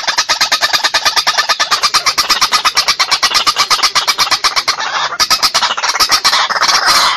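White-breasted waterhen (ruak-ruak) calling in a rapid string of harsh pulses, about ten a second. It is the bird's territorial challenge call, played as a lure to draw rival waterhens in to fight and be trapped.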